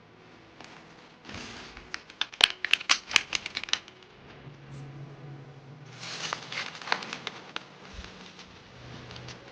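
Plastic blind-bag packaging being handled, crinkling and crackling in two bouts: one about two seconds in, the other about six seconds in.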